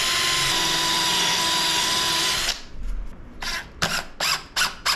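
Power drill driving a screw into a wooden board: one steady run of about two and a half seconds, then a quick string of short trigger bursts as the screw is snugged in.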